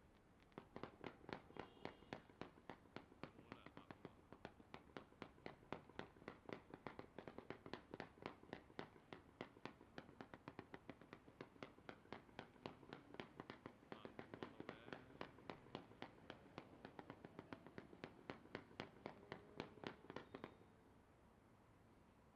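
Fireworks going off in a rapid, fairly even series of sharp pops, about four a second. The series runs for about twenty seconds and stops abruptly near the end.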